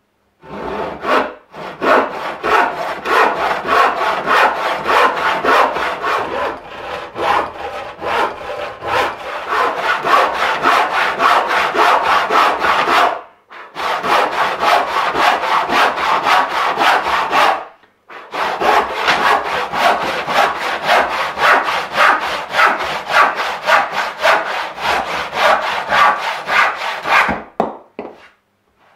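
Hand saw cutting across the grain of a softwood board in quick, even strokes, about two a second, with two short pauses. The saw is a cheap impulse-hardened hand saw whose hardened teeth were ground off and refiled as a crosscut, about 7 teeth per inch. The sawing stops near the end.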